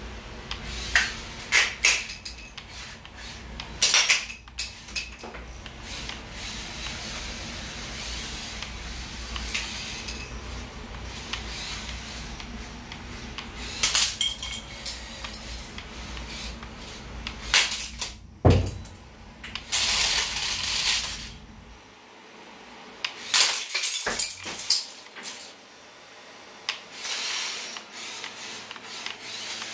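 Lego combat robot's vertical spinner and drive motors humming steadily while it hits a Lego set, with repeated sharp plastic clatters and rattles as bricks are knocked loose and skitter across the concrete floor. The hum stops about three-quarters of the way through, and the clattering goes on in scattered bursts.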